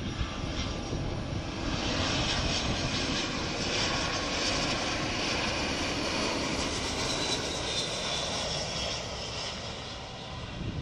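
Airliner passing low on its landing approach. The engine noise swells about two seconds in, holds with a faint high whine that slowly falls in pitch, and eases off near the end.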